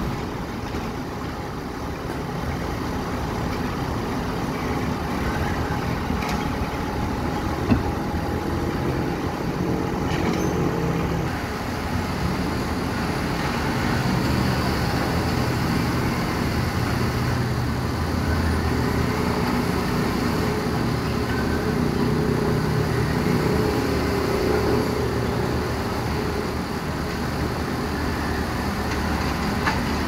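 Diesel engine of a self-loading concrete mixer truck running, its note growing stronger twice as the machine works under load. There is a single sharp knock about eight seconds in.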